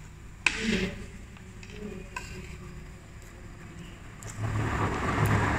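Spoon and fork clinking and scraping on a plate of fried rice during eating, with a sharp click about half a second in. A louder, steady rushing noise swells up about four seconds in.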